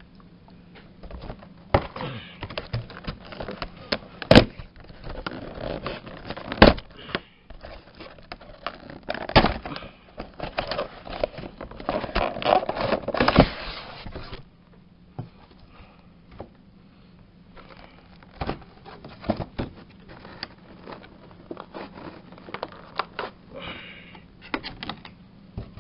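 A cardboard collector box and its clear plastic blister tray being opened and handled: crackling, scraping and sharp clicks of the plastic, busiest in the first half, then lighter clicks and rustling.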